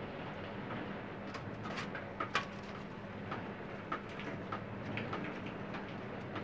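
Irregular tapping of rainwater being forced through the roof in a storm, a few taps a second, over the steady hiss of wind-driven rain. The loudest tap comes about two and a half seconds in.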